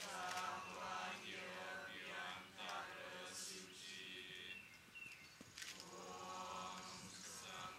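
A voice chanting Balinese Hindu prayer mantras on a steady held pitch, with the recitation rising and falling in phrases above it.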